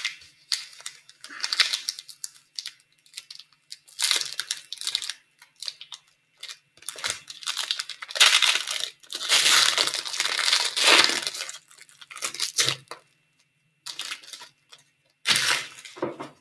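Foil wrapper of a 2013-14 Select hockey card pack being torn and crinkled, mixed with cards sliding and flicking against each other in the hands. The rustling comes in uneven spells, longest and loudest about eight to eleven seconds in, with another spell near the end.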